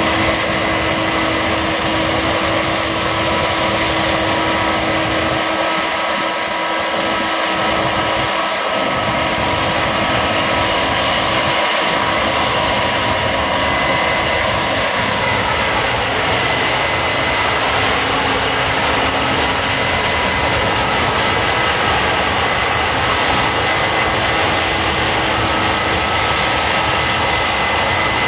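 Case combine harvester running steadily while harvesting barley: a continuous, dense mechanical din with several steady whining tones over it.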